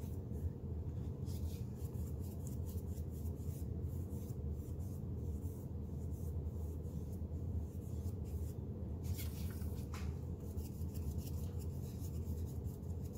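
A wide flat paintbrush scrubbing acrylic paint across a canvas in quick, repeated scratchy strokes as it blends the darker colour in. A few strokes near the end stand out louder. A steady low hum runs beneath.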